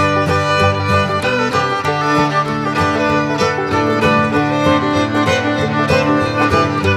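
Background music led by fiddle over plucked strings, with a steady beat, in a bluegrass or country style.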